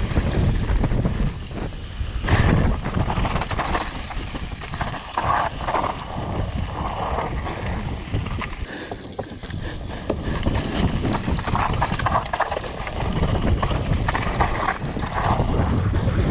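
Wind buffeting the microphone over the rumble and rattle of a downhill mountain bike running over rough trail, loud and uneven throughout.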